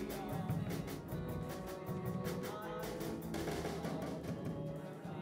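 A small live band playing a song: drum kit keeping a steady beat under strummed acoustic guitar and keyboard.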